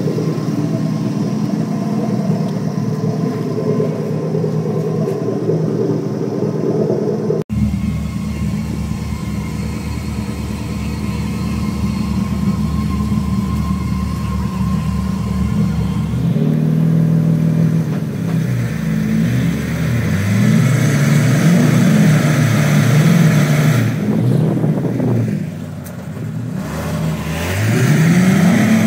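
Truck engine running steadily, then from about halfway revving up and down again and again, with a truck stuck deep in mud.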